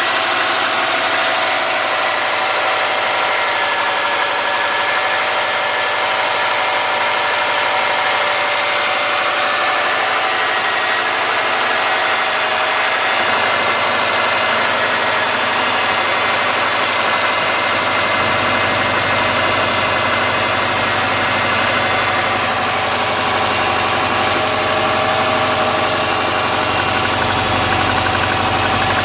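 2003 Subaru Forester's flat-four engine idling steadily after a cold start, with a ticking from the driver-side cylinder head: excessive clearance on the driver-side front cylinder's exhaust valve, about .029 in instead of roughly .010.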